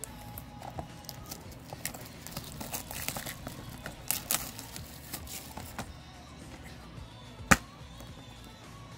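Plastic shrink wrap crinkling and crackling as it is peeled off a Blu-ray case, in a run of short irregular crackles. Near the end the plastic case snaps open with one sharp, loud click.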